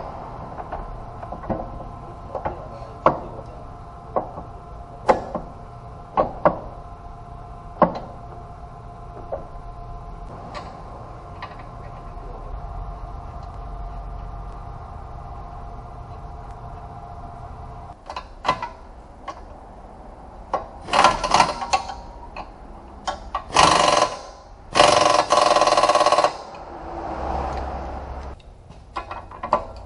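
Tool work under a lifted car: scattered metallic clicks and knocks as parts are handled, then near the end several loud bursts of a power tool, the longest about a second and a half.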